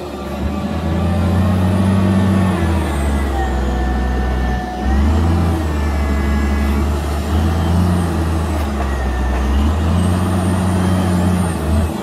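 Caterpillar 938G wheel loader's diesel engine running under load while it drives and pushes sand, swelling and easing in turns, with a brief dip about five seconds in. A whine rises and falls over the engine.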